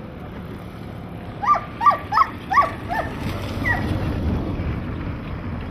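A greyhound yelping: five short, high yelps, each falling in pitch, in quick succession about a second and a half in, then one more. A low rumble follows.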